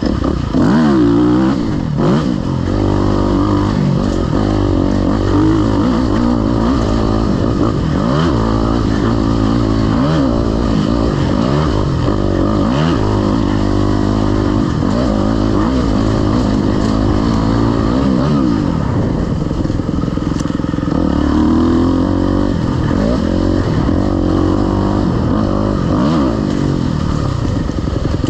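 Dirt bike engine revving up and down repeatedly as the bike is ridden off-road, its pitch climbing and dropping every second or two.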